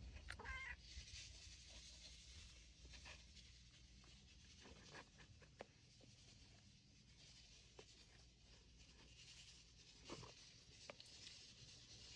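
Near silence, with faint rustling and a few soft clicks from a hand stroking a cat's fur.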